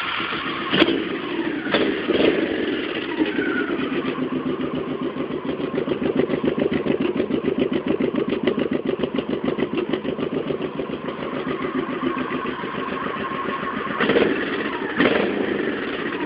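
Honda Shadow Spirit 1100's V-twin running through stock mufflers with the baffles drilled out, just after start-up. A few quick throttle blips in the first couple of seconds die back into an even, pulsing idle, with two more short revs near the end.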